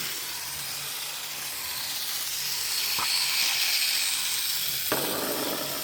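Small battery-powered electric motor and gear train of a 1960s Marx bump-and-go Dalek toy running, a steady whirring hiss that swells and eases, with a couple of light clicks from the mechanism. It is freshly greased and running fast.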